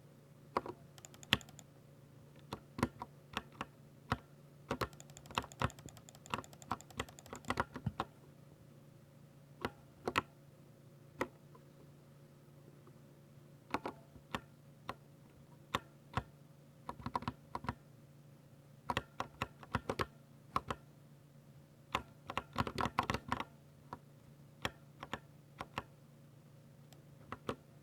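Typing on a Ducky 60% mechanical keyboard with silver switches: irregular keystrokes with pauses, and two quick runs of rapid key presses.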